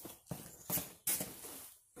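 Footsteps of work boots on a concrete floor: a few uneven scuffing steps.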